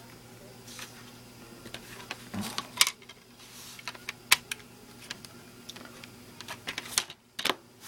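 Plastic DVD cases being handled: scattered light clicks and taps as the cases are set down and picked up.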